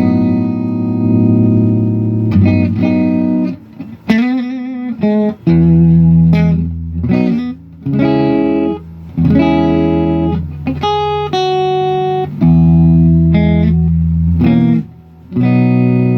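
Electric guitar played on its neck pickup in single-coil mode: a run of chords, each left to ring for a second or two with short breaks between. About four seconds in, one chord wavers in pitch.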